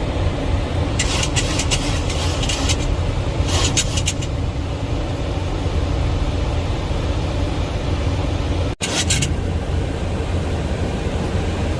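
Steady cockpit noise of a Boeing 737 MAX 8 on final approach: a constant rush of airflow and engine rumble, heaviest in the low end. It is broken by short bursts of crackling clicks about one to four seconds in and again about nine seconds in, where the sound also cuts out for an instant.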